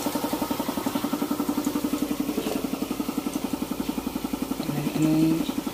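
A small engine idling steadily, a rapid even pulse of about a dozen beats a second. About five seconds in there is a short, louder held tone.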